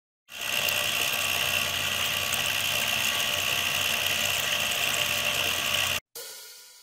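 Homemade 12V push-type water pump running: an 80 W 775 DC motor spins a thin tin propeller in a 49 mm plastic pipe. It gives a steady high whine over water churning, and cuts off abruptly about six seconds in.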